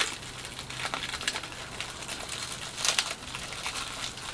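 Foil-like plastic lining of an insulated cool bag crinkling irregularly as hands press and tuck it down, with a sharper crackle just before three seconds in.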